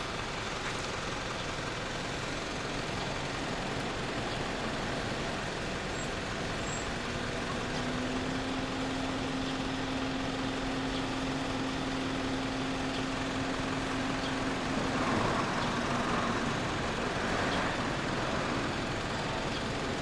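Steady road traffic noise beside a street, with one vehicle's steady low hum from about 7 to 15 seconds in.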